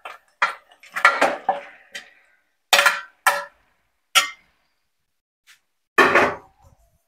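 A metal spoon and ladle clinking and scraping against a steel plate and a metal cooking pot as raw chicken pieces are added to the pot: about seven separate sharp clinks and knocks, with a longer clatter about six seconds in.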